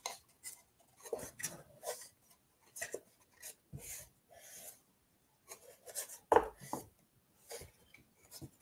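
Wiping excess wet glue off the finger joints of a small MDF box: short, irregular rubbing and scraping strokes of a wipe on wood, with a sharper knock about six and a half seconds in.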